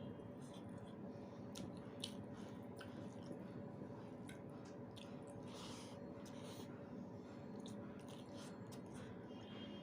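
Faint chewing and wet mouth sounds of a person eating rice with potato dal and fried egg: scattered short smacks and clicks over a steady low hum.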